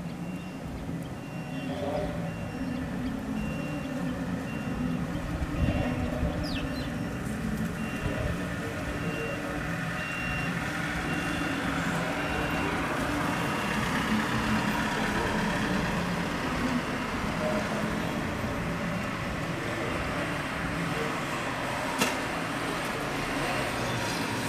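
A vehicle engine runs with a low, steady rumble while a reversing alarm beeps at an even rate, plain through the first half and fading after about twelve seconds. There is a single sharp click near the end.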